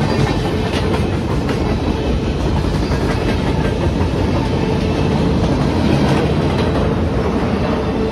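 Freight cars of a passing freight train rolling over the crossing, their wheels clattering steadily on the rails. A steady tone joins the rumble about five seconds in.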